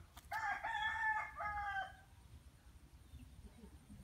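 A rooster crows once: one call about a second and a half long, broken into a few parts.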